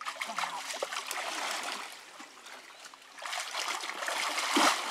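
Shallow creek water splashing and sloshing around a man wading waist-deep and groping under a root-tangled bank. It is louder in the first second and a half, drops briefly, then builds again from about three seconds in to its loudest splash near the end.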